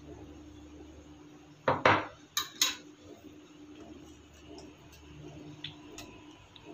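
Metal spoon clinking and scraping against a metal rice-cooker pot while stirring coconut milk into greens: a loud clatter and two sharp clinks about two seconds in, then a few lighter ticks near the end.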